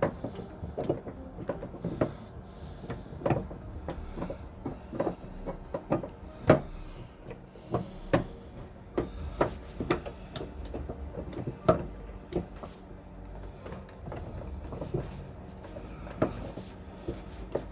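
Irregular clicks and knocks of metal parts and hand tools being handled while fitting the trunk-lid latch hardware, with single sharp taps every second or so.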